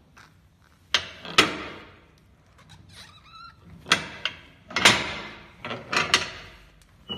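Handling noise from a black rubber boot being worked with a wooden-handled hand tool: about eight sharp knocks and scrapes in irregular clusters, each dying away quickly. A brief squeak comes about three seconds in.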